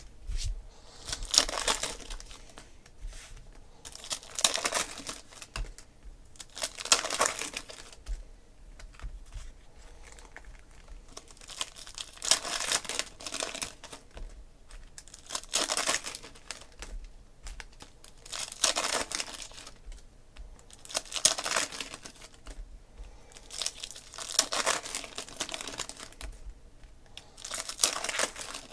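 Foil trading-card pack wrappers crinkling and tearing as the packs are opened one after another, in noisy bursts every two to three seconds.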